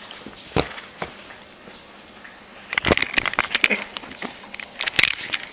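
A quiet stretch with a single click, then from about three seconds in a rapid run of sharp clicks and crackles that carries on to the end.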